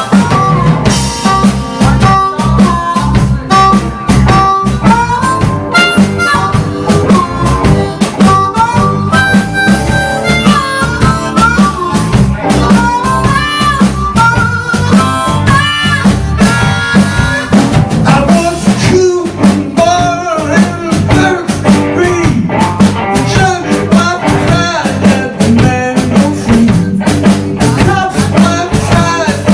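Live blues band: a harmonica cupped against a vocal microphone plays an amplified solo with bent notes, over electric guitar, electric bass and a drum kit keeping a steady beat.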